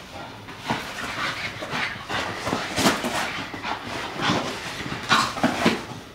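Staffordshire bull terrier puppy playing rough on a blanket and rug: an irregular run of scuffles and sharp thumps from its paws and body as it leaps and skids about, the loudest near the middle and near the end.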